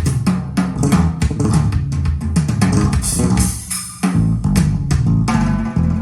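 Music with bass guitar and drums, played back on a hi-fi system with an open baffle subwoofer. The music drops away briefly about four seconds in, then comes back in.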